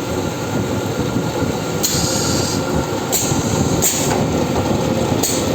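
A special-purpose multi-spindle drilling machine running with a steady, dense mechanical rumble, broken by four short hissing bursts.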